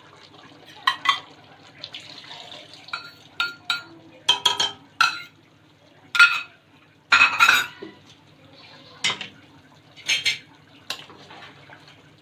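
A metal cooking utensil clinking and scraping irregularly against a pan as arrowroot slurry is stirred into simmering chicken gravy to thicken it, over a low steady hum.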